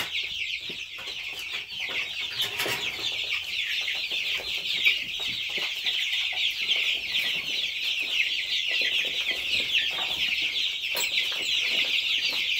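A brooder full of four- to five-week-old chicks, meat birds and layers together, peeping continuously: a dense chorus of many overlapping high chirps.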